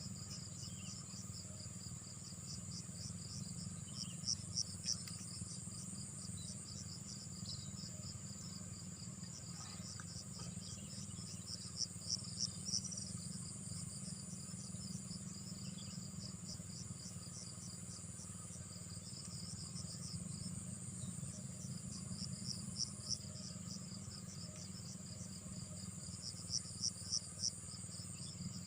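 Insects chirping: a fast, pulsing chirp with a steady high trill above it, growing louder in short spells several times, over a low steady hum.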